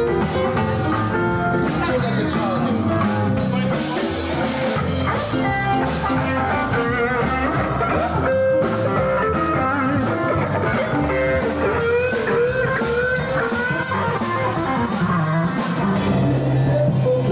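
Live band playing with electric guitar, drum kit and electric keyboard, over a steady drum beat.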